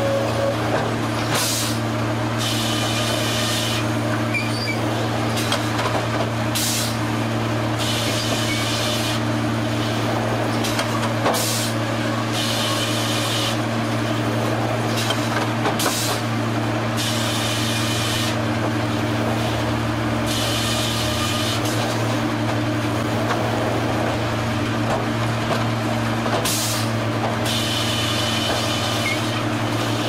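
Sawmill log carriage and headrig machinery running with a steady low hum, broken every few seconds by short bursts of hissing, each about a second long.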